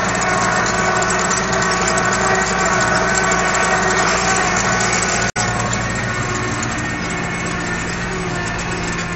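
Case IH 1056XL tractor's six-cylinder diesel running steadily under load while pulling a harrow, heard from inside the cab. The sound drops out for an instant about five seconds in, then the engine carries on.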